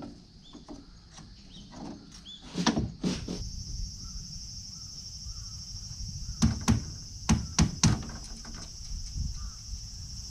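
Hammer driving small spiral nails into wooden concrete formwork: two blows a few seconds in, then a quicker run of five blows past the middle. A steady high insect shrilling sets in after the first blows.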